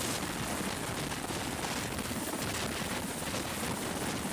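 Helicopter rotor and turbine noise: a steady, dense rush with a fast beat underneath.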